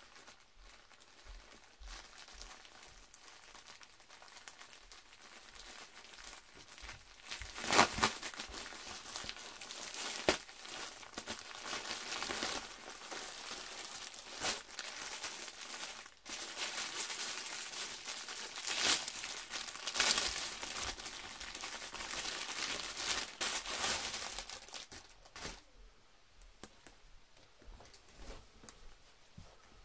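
Plastic mailer bag and the jersey's clear plastic bag crinkling and tearing as they are handled and pulled open, in irregular rustles with sharp crackles, loudest about 8 s in and again around 19 to 20 s; softer handling near the end.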